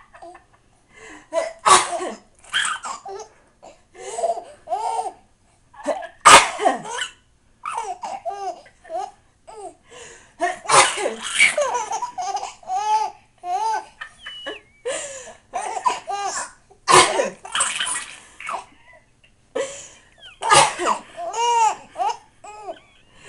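A baby laughing hard in repeated bursts of giggles, set off by an adult's fake sneezes and coughs, which come as a few sharp, short blasts between the laughs.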